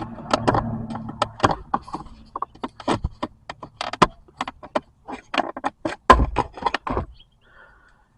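Plastic centre-console trim clicking, knocking and rattling as the shifter indicator panel is pried loose from its retaining clips. The strikes come in quick irregular runs, the loudest knock about six seconds in, and they stop about a second before the end.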